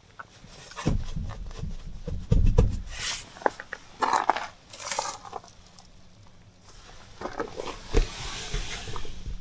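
Irregular clicks, knocks and rustling of things being handled at close range, with a louder knock about eight seconds in.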